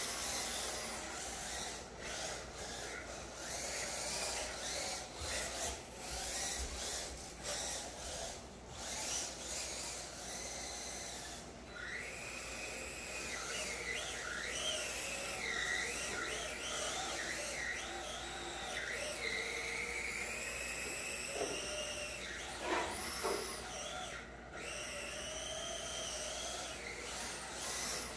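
Electric 1/10-scale RC drift cars (an MST RMX and a Sakura D4) running a drift course. Motor whine rises and falls with the throttle, most plainly in the second half, over a steady scraping hiss of hard drift tyres sliding on foam floor tiles.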